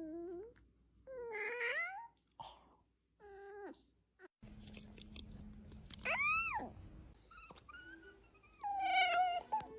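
Puppies yawning with high, squeaky whines, about six in a row; each squeak lasts under a second and slides up or down in pitch.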